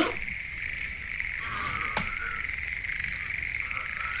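Steady, high trilling chorus of jungle ambience, with a single sharp click about two seconds in.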